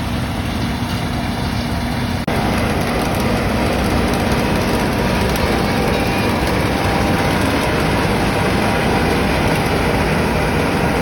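Heavy farm harvest machinery running with a loud, steady engine drone. A brief cut-out about two seconds in, after which it runs a little louder.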